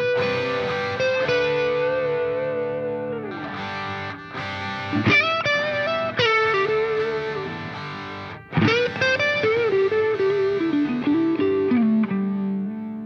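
Music: a distorted electric guitar playing a slow melody of long held notes that bend in pitch, with a short break about two thirds of the way through and a final low note that rings out and fades near the end.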